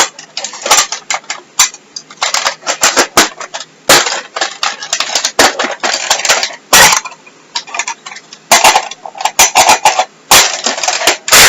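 Plastic parts of a Nerf N-Strike blaster being snapped, clicked and clattered together by hand during fast reassembly: a busy run of loud irregular clicks, knocks and rattles, with louder snaps about 4, 7, 10 and 11 seconds in.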